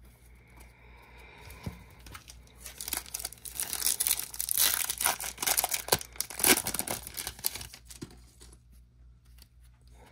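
A foil Topps baseball card pack wrapper being torn open and crinkled by hand. The crackling is loudest from about two and a half seconds in until about eight seconds in.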